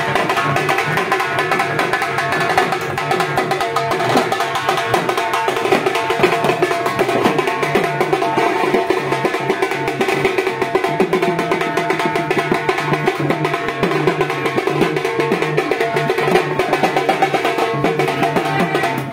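Procession music played while walking: a drum and a fast, dense clatter of small percussion keep a steady beat over sustained pitched tones.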